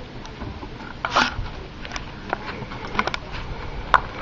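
Scattered light clicks and knocks as a corrugated plastic RV sewer hose and its fitting are handled, with a brief louder scrape about a second in and a sharp click near the end.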